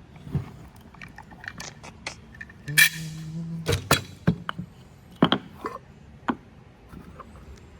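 Scattered metallic clicks and clanks as brake caliper pistons and tools are handled during piston removal, with a short burst of air hiss about three seconds in.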